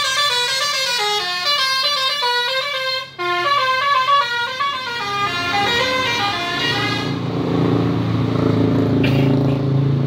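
Bus telolet horn, the Basuri type, playing a stepped multi-note tune with a short break about three seconds in. The tune stops about seven seconds in, and the bus's engine running close by takes over and grows louder to the end.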